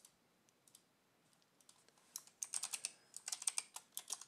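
Computer keyboard typing: a few scattered key clicks, then a fast run of keystrokes starting about two seconds in.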